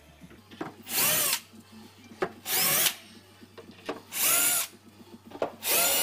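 Cordless drill run in four short bursts about a second and a half apart, the motor's whine rising and falling in pitch with each trigger pull. Light clicks come between the bursts.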